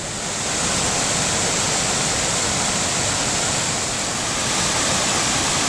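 Steady rush of a large multi-tiered waterfall, Tinuy-an Falls.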